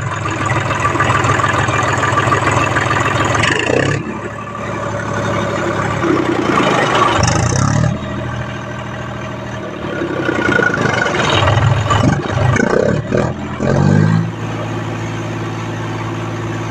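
John Deere 5050D tractor's three-cylinder diesel engine running at raised revs, dropping back, revved up twice more, then settling to a steady idle near the end. Its exhaust blasts out of the upright silencer pipe into an air-filter bowl held over the outlet, blowing the dust out of it.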